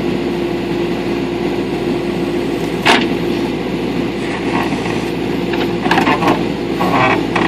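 Backhoe engine running steadily under work, with a single sharp knock about three seconds in and a few lighter clanks near the end.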